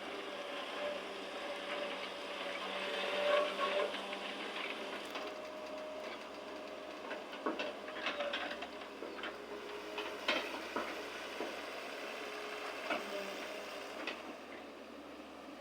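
Excavator at work: a steady mechanical whine with scattered sharp metallic knocks and clanks throughout.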